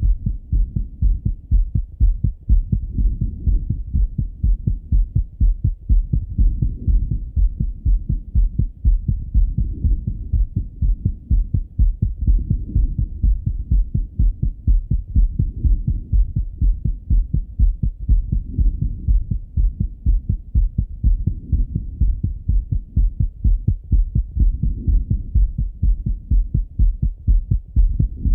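A man's heartbeat heard through a Littmann stethoscope: a steady, regular train of low, dull lub-dub thumps.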